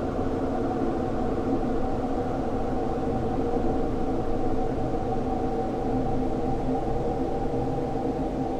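Dark ambient drone: a steady, dense bed of many held low tones over a rumbling hiss, with no beat or melody, unchanging throughout.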